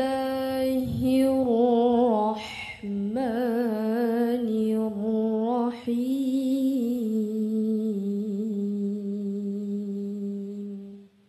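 A woman reciting the Qur'an in the melodic tilawah style, drawing out the word "Allah" of the basmala in long ornamented melismas with a wavering, trilling pitch. It ends on a long held lower note that stops shortly before the end.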